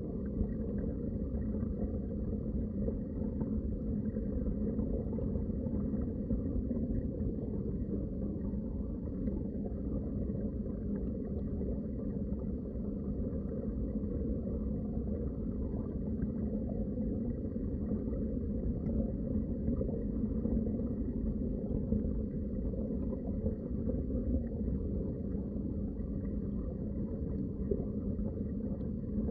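Underwater water ambience: a steady, muffled low rumble of moving water.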